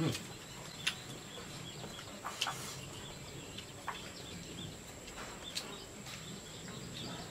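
Quiet eating at a table: a few sharp, scattered clicks of chopsticks against porcelain bowls, over a steady rural background with faint bird chirps and a steady high insect whine.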